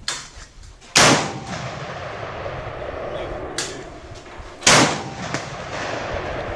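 Vintage big-game double rifle fired twice, one barrel then the other, about four seconds apart; each heavy report is followed by a long rumbling echo. Two fainter sharp cracks sound as well, one at the start and one shortly before the second shot.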